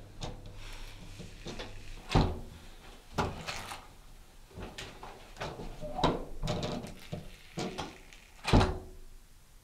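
Apartment door being opened and shut: a handful of separate knocks and thuds, the loudest near the end as it closes.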